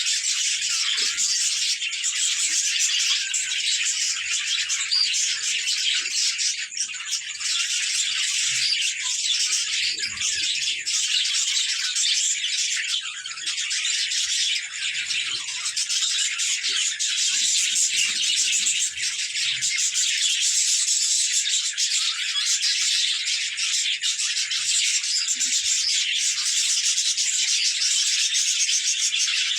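A flock of budgerigars chattering and warbling together in a dense, continuous, high-pitched stream.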